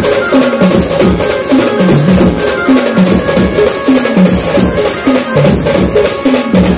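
Live procession band music played loud through a truck-mounted sound system, drum-led, with a short falling note repeating about twice a second. The deep bass drops out for this stretch and comes back right at the end.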